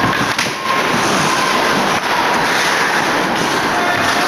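Loud, steady din of an indoor ice hockey game: crowd noise echoing in the rink, with a few sharp clacks of sticks and puck.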